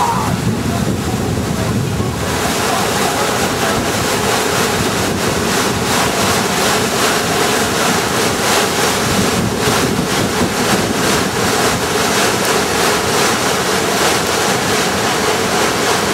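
Steady rushing noise of whitewater pouring over a river drop and churning below it, with wind on the microphone. The sound gets brighter and hissier about two seconds in.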